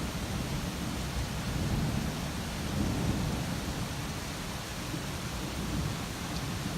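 Thunderstorm: steady rain hiss under a low, rolling rumble of thunder that swells slightly about three seconds in.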